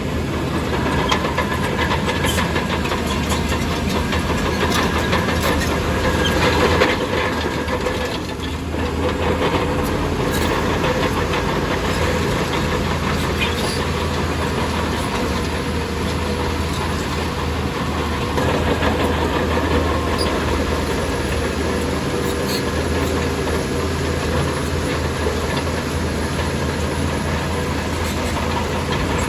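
Shantui DH17C2 crawler bulldozer working: its diesel engine runs steadily under a constant low hum, while the steel tracks give a continuous rattle of clanks and clicks. The sound dips briefly about eight seconds in.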